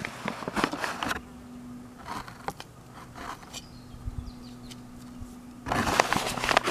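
Dry, clumpy garden soil crunching and scuffing as bean seeds are pressed into it by hand. Quieter in the middle, with a faint steady buzz; louder, denser scuffing near the end as the person shifts along the row.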